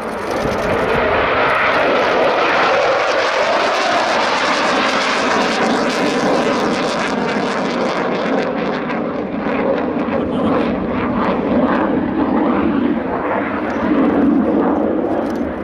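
Military jet departing under full power: a loud, continuous engine rush that grows deeper as the aircraft passes and climbs away.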